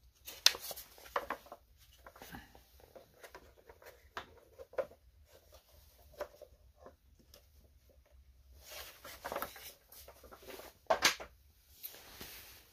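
Hard plastic air-filter cover being handled and set down: light knocks, scrapes and rustles on and off, with sharper knocks about half a second in and again about eleven seconds in.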